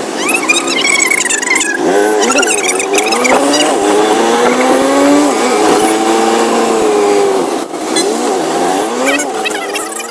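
Auto-rickshaw's small engine heard from the passenger seat while riding, its pitch climbing and then dropping several times as it speeds up and changes gear, over road noise.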